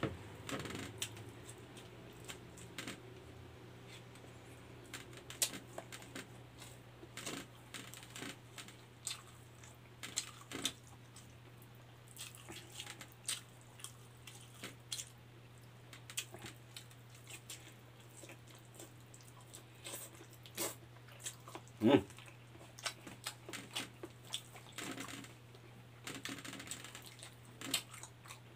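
Close-up mukbang eating sounds: chewing, lip smacks and wet mouth clicks as rice and fried egg are eaten by hand, coming irregularly, with a few louder smacks, over a steady low hum.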